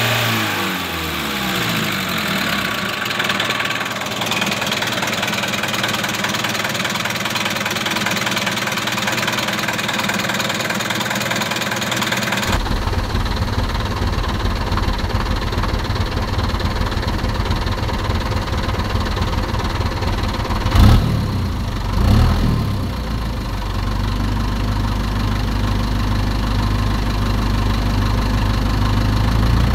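Heavy truck diesel engine sound idling steadily after winding down at the start. About twelve seconds in it switches abruptly to a deeper idle, with two brief louder revs a little past twenty seconds.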